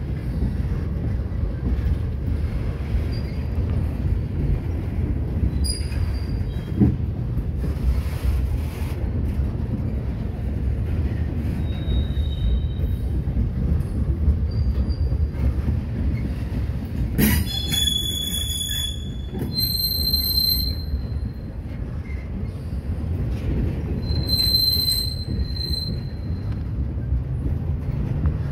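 Freight train flatcars rolling steadily past with a continuous low rumble of steel wheels on rail. Several brief high-pitched wheel squeals ring out over it, the loudest around the middle and again near the end.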